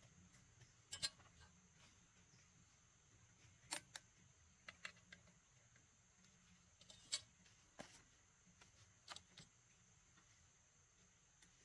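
Near silence broken by a few faint, scattered light clicks and knocks, with a steady high hiss underneath.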